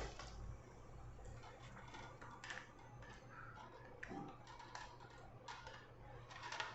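Faint scattered clicks and taps of plastic parts being handled as a ring light is fitted onto its stand, over a low room hum.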